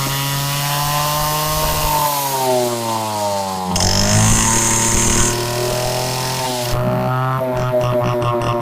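Bajaj M80's small single-cylinder two-stroke engine running with a buzzing note. Its revs drop off for a couple of seconds, then pick up again from about four seconds in.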